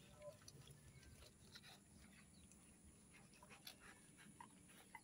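Near silence, with a few faint, brief squeaks and small clicks from newborn puppies.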